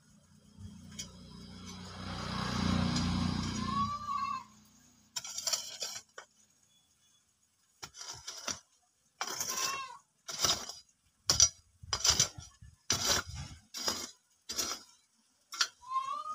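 A kodal digging hoe chopping and scraping into dry, hard soil in a run of sharp strikes, roughly one every half second to one second. Before the strikes there is a swelling rush of noise for the first few seconds. A goat bleats a few times.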